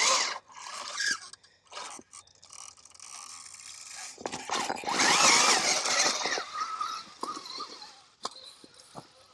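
Axial SCX6 RC crawler driving over rock: its electric motor and drivetrain whine, with the pitch rising and falling as the throttle changes, over crunching and scraping of tires and chassis on stone. The loudest stretch comes about four to six seconds in.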